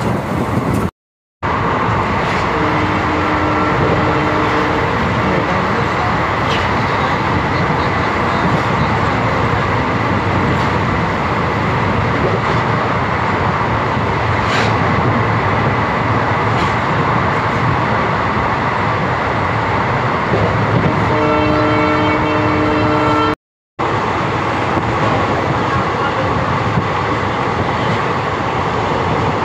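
Passenger train running on the rails, heard from aboard: a steady rumble and rattle of the wheels and coach. A train horn sounds briefly about three seconds in and again for about two seconds near the end. The sound cuts out for a moment twice.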